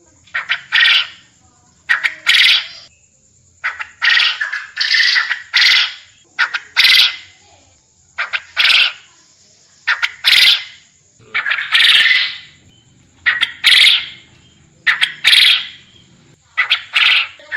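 Quail calling over and over, a harsh call about every one and a half to two seconds, some calls doubled. A faint steady high-pitched whine runs underneath.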